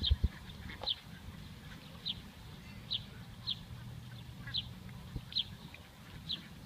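A bird chirping over and over, short high chirps about once a second, over a low background rumble. A low thump comes just after the start, the loudest sound here, and a smaller one after about five seconds.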